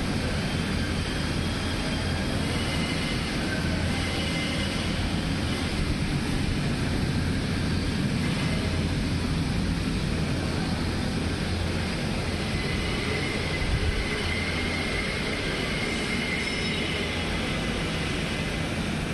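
Electric inflation blower running steadily to keep an inflatable bounce castle slide inflated: a constant low hum under an even hiss, with a brief bump about 14 seconds in.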